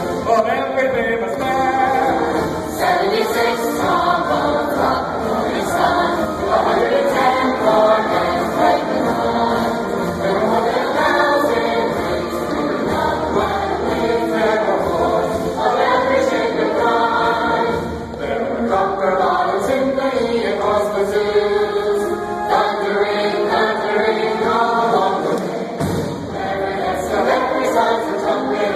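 A choir and stage cast singing a show tune together, with a school band playing along.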